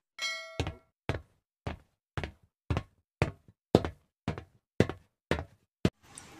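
A series of sharp, evenly spaced percussive knocks, about two a second, in an animated channel intro's sound track. It opens with a short ringing tone.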